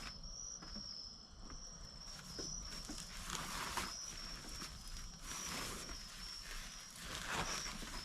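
A steady, high-pitched chorus of night insects chirring throughout, with a few rustling swishes about three, five and seven seconds in as the outdoor mat is handled.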